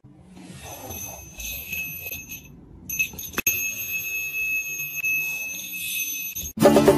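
A small bell on a cat's wand toy ringing in high steady tones as the toy is shaken. The ringing stops briefly about two and a half seconds in, then goes on. Louder music cuts in near the end.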